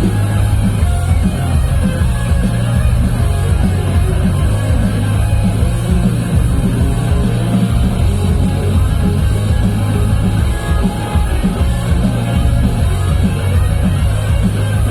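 A rock band playing live and loud, with a heavy bass and drum beat under guitars.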